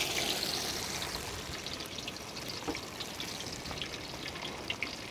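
Hot oil sizzling and crackling in a large metal wok as a whole marinated rabbit deep-fries, a steady hiss with scattered small pops. The sizzle is strongest at first, as the meat goes in, and eases slightly after.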